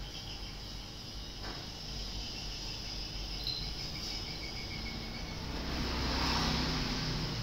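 Steady ambient hum with faint high chirping like insects. A motor vehicle's engine grows louder from about three quarters of the way through.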